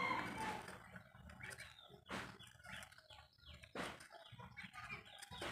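Faint bird calls in the background, with two short clicks about two and four seconds in.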